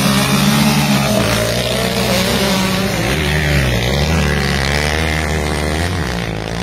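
A motor vehicle's engine revving under load. Its pitch dips and climbs again about three to four seconds in, then holds steady.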